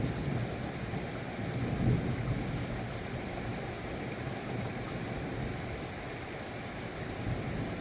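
Steady rain with a low rumble of thunder beneath it, swelling slightly about two seconds in.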